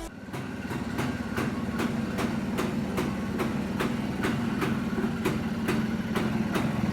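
Yezdi D250's two-stroke single-cylinder engine running steadily at idle, with a regular tick about two to three times a second.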